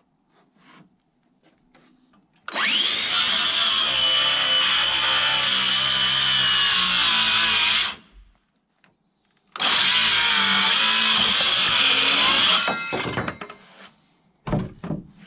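Circular saw cutting along the edge of wooden siding boards in two passes: a first cut of about five seconds, a short pause, then a second of about three seconds. The blade spins down after the second cut, and a few short knocks follow near the end.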